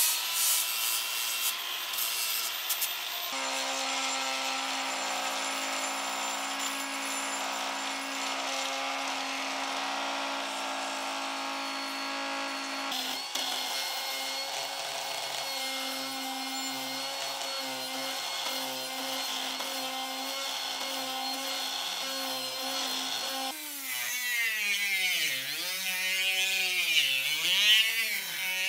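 Power grinders working on a cast swage block: an angle grinder with a flap disc, then die grinders with sanding caps and discs, each running with a steady high whine. Near the end the die grinder's pitch dips and recovers again and again as the disc is pressed into the metal and eased off.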